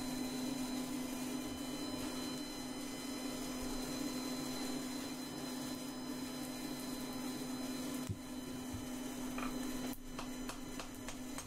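A steady low hum runs throughout. In the last second and a half comes a quick run of hand-hammer blows on a red-hot rasp blank over the anvil's edge, bending the knife's handle.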